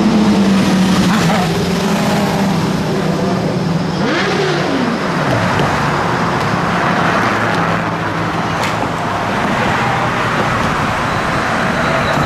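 Car traffic passing close by on the bridge roadway: a steady rush of engines and tyres, with one engine note rising and then falling about four to five seconds in.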